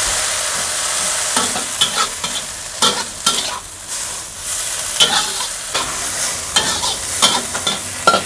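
Water spinach sizzling as it is stir-fried in a black steel wok, with a metal wok spatula repeatedly scraping and clinking against the wok as the greens are tossed.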